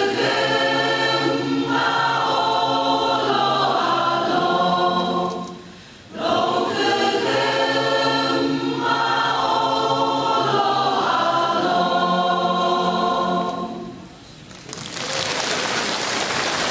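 Mixed church choir of men and women singing a gospel song together, with a short break about six seconds in; the song ends about fourteen seconds in and is followed by applause.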